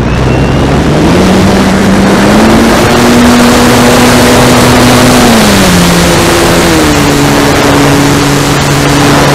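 RC aerobatic plane's motor and propeller running at high power, heard from a camera mounted right behind the prop, with a loud rush of wind over the airframe. The motor's pitch steps up in the first few seconds as the plane takes off and climbs, then drops twice in the second half as the throttle is eased.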